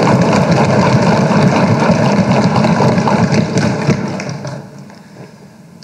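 A chamber full of legislators thumping their desks in approval, a dense patter of many thuds that fades away near the end.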